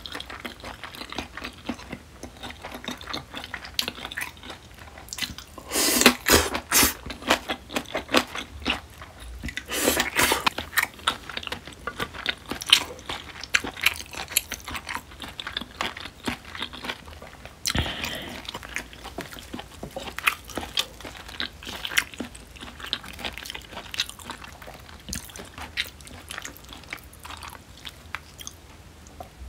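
Close-miked chewing of crisp-skinned smoked duck: irregular wet mouth clicks, smacks and crunches, densest and loudest about six and ten seconds in, with a single sharp knock a little past halfway.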